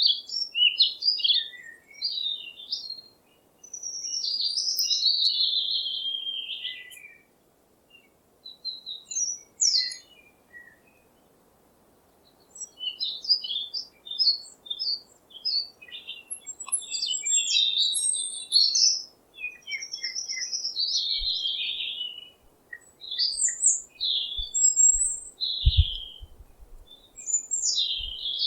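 Songbirds singing in the woods: bursts of chirps and warbling phrases, with short pauses between them. A few low thumps come in near the end.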